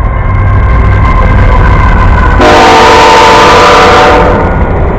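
Diesel locomotive air horn sounding a chord of several tones, faint at first, then a long loud blast from about halfway through. Under it runs the heavy rumble of a freight train rolling past.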